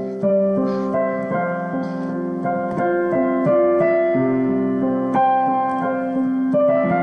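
Solo piano playing slow, sustained chords, with new notes and chords struck about every half second to a second and left to ring.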